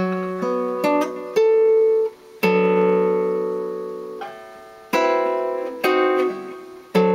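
Guitar playing a slow chord-melody phrase: about six chords struck one at a time and left to ring and fade, with a couple of single notes plucked in between.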